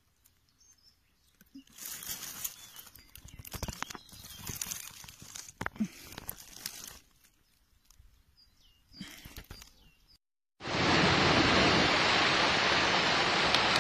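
Dry leaf litter rustling and crunching in short irregular bouts. After a brief dropout, a steady, much louder rushing noise takes over for the last few seconds.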